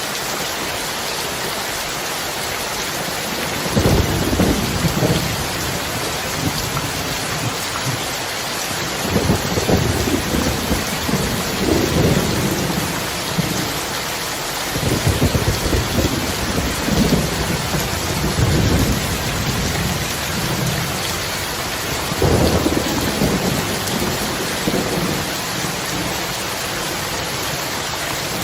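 Heavy rain falling steadily, with about four rolls of thunder rumbling over it, the first breaking in suddenly a few seconds in and the others following at intervals.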